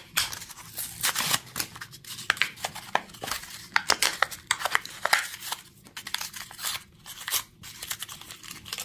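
Cardboard backing card of a toy car's blister pack being torn open by hand, the plastic blister crinkling as it is worked loose: a quick, irregular run of ripping and crackling noises.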